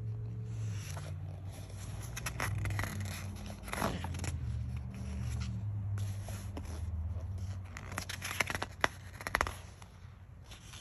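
Glossy paper pages of a large softcover book being turned and handled, rustling and flapping several times.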